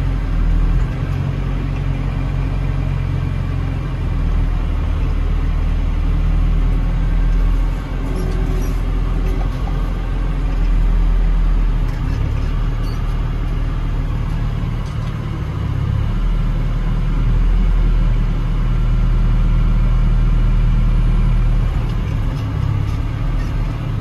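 Telehandler's diesel engine heard from inside the cab, its note rising and falling as the loader's hydraulics work a bale-splitting grab on a wrapped haylage bale.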